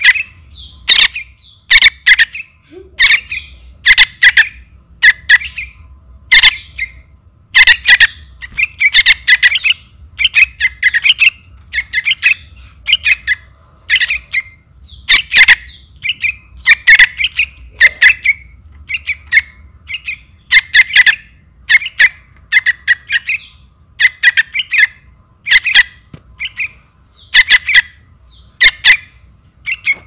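Young trukan (bulbul) nestlings calling for the parent bird: short, harsh chirps in quick clusters, repeated about once a second.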